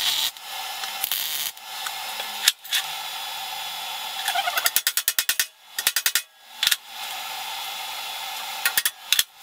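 TIG welding arc buzzing and hissing steadily, in short spliced clips broken by sudden cuts and sharp clicks, with a quick run of clicks near the middle.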